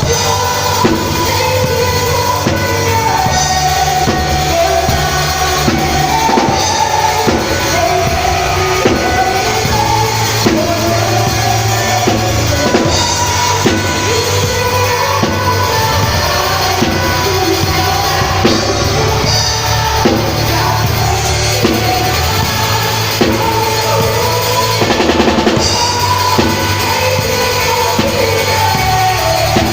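Band playing a worship song with a drum kit keeping a steady beat, bass drum and snare prominent, under a melodic lead line.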